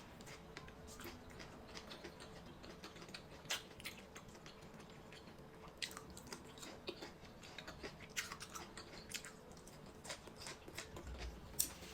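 A person chewing and biting food close to the microphone: irregular short clicks and smacks from the mouth.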